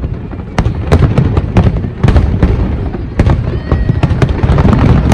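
Aerial fireworks going off in a rapid barrage: many sharp bangs and cracks in quick irregular succession over a continuous low rumble.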